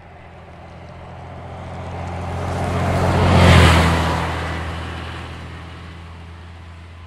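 Leyland National Mk1 single-deck bus, with its Leyland 0.510 8.2-litre fixed-head turbodiesel, driving past. The engine grows louder as the bus approaches, is loudest as it passes about three and a half seconds in, then fades as it moves away.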